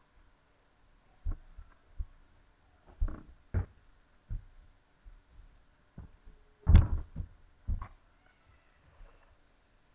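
A dancer's feet thudding on a wooden floor: irregular thumps from steps, turns and landings, the loudest about two-thirds of the way through.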